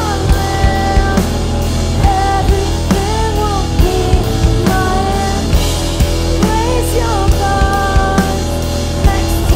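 Live rock band playing in a grunge style: drum kit keeping a steady beat under electric guitar and keyboard, with a woman singing over it.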